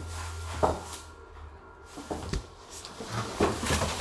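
Cardboard box and plastic-wrapped chair parts being handled. There is a sharp knock just after half a second, a couple more around two seconds, then a busy run of knocks and rustling near the end.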